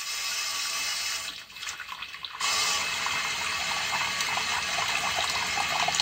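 Water pouring in a steady stream from the steam boiler's skim tapping into a steel bucket partly full of water. It weakens for about a second around a second and a half in, then runs on steadily. It is the overflow while skimming a new boiler, carrying the manufacturer's oils off the water line.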